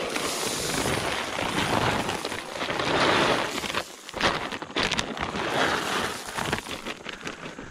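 Shelled deer corn poured from a feed bag onto dry leaf litter in a steady rush, then, after a brief pause about four seconds in, the near-empty plastic feed bag shaken and crinkled.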